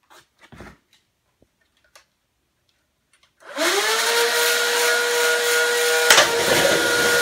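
Flywheel motors of a Nerf Rival Zeus MXV-1200 blaster, overpowered by a 3S LiPo battery, spinning up about three and a half seconds in to a loud, steady high whine. A single sharp shot snaps out about a second before the end.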